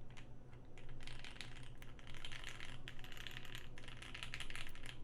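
Continuous fast typing on a Keychron Q1 aluminium-plate mechanical keyboard with lubed, filmed Pinoko switches: a dense, uneven run of key clacks. The board has the tape mod but its poly-fil case stuffing taken out, a state the builder finds a little hollow.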